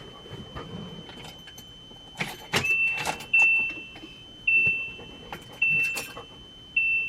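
Keys rattling and clicking, then a high warning chime from the RV's dashboard beeping about once a second, each beep starting loud and fading. No engine cranking is heard: the RV will not start.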